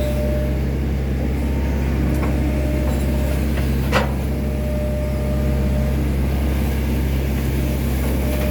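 Excavator's diesel engine running steadily with a deep, even hum, and a single sharp knock about four seconds in.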